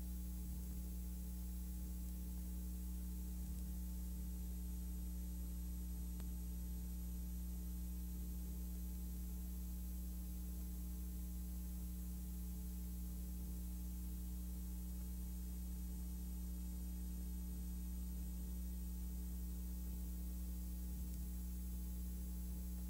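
Steady low electrical hum with an even layer of hiss and no other sound: the empty soundtrack of a film shot silent, carrying only the noise of the transfer.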